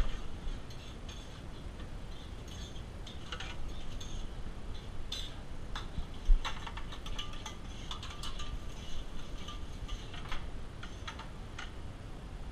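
Scattered light clicks and taps of metal utensils and small pans being handled at a commercial kitchen griddle, over a steady low background rumble.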